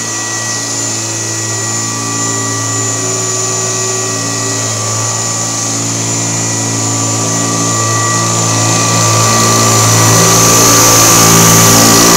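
1972 Kirby Classic 1CR upright vacuum in portable mode running steadily with its beater bar agitating a mattress, a steady hum with a whine over it, getting louder and hissier over the last few seconds.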